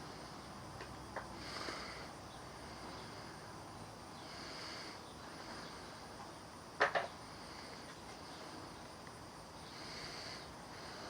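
Faint insect chirring that swells and fades every few seconds, with a sharp double click about seven seconds in.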